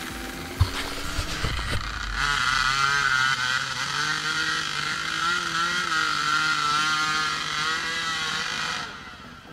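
Enduro dirt bike engine running under changing throttle on a trail, its pitch wavering up and down, with a sharp knock about half a second in. The engine fades near the end.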